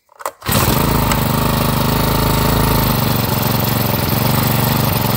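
Honda GX35 four-stroke brushcutter engine starting about half a second in, then running steadily. It now runs on a newly fitted ignition coil.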